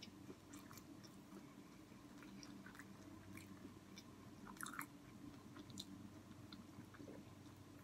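Faint close-up chewing: soft, scattered mouth clicks and smacks of someone eating with the mouth closed, over a faint steady hum.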